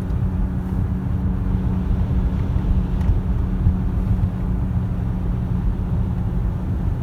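Steady low road rumble and engine drone heard inside the cabin of a moving car.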